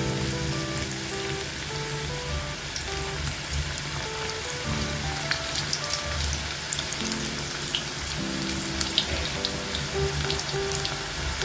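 Noodle pakoda fritters deep-frying in hot oil: a steady sizzle with many scattered pops and crackles. Background music plays over it.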